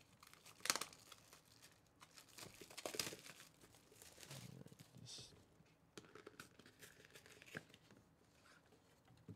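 Clear plastic shrink wrap being torn and crinkled off a cardboard box, in faint, uneven crackles with louder rips about a second in and about three seconds in.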